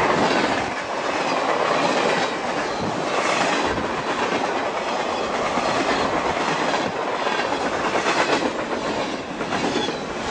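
Freight train rolling past close by, its wheels clicking over the rail joints in a steady, loud rush of noise.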